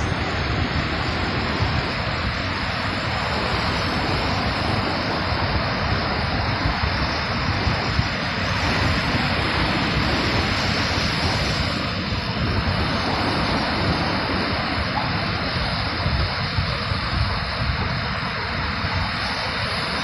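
Ocean surf breaking offshore and washing up a sandy beach: a steady rush of water noise that swells and eases slightly with the waves. Wind rumbles on the microphone underneath.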